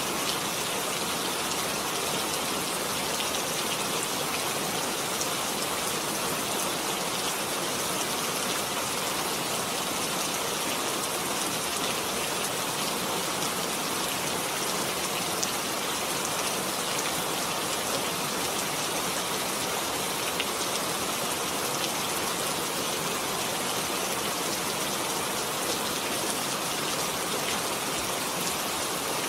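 Heavy rain falling steadily, a dense even hiss of drops with fine pattering spatter.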